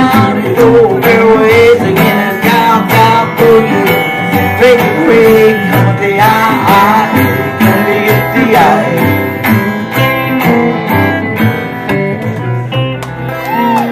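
Live country boogie band playing: strummed acoustic guitar and a second guitar under gliding, sliding lines from a steel guitar.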